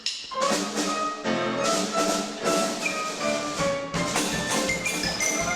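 Lively orchestral music with quick, short xylophone-like mallet notes and wood-block knocks.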